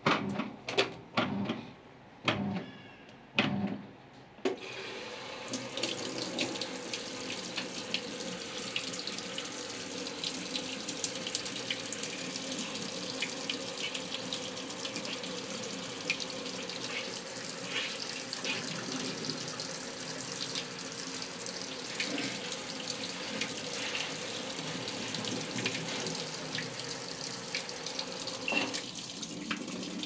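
A few sharp knocks in the first four seconds, then water pouring steadily from the inlet into the empty drum of an LG top-loading washing machine as it fills, easing off near the end.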